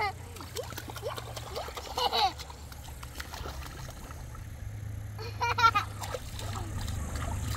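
Rushing river water, a steady low rumble, with short snatches of a person's voice near the start, about two seconds in, and again around five and a half seconds.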